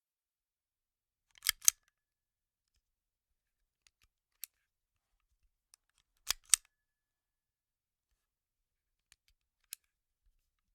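Sharp mechanical gun clicks, like a firearm being cocked or handled: a quick double click twice, about five seconds apart, with a fainter single click after each.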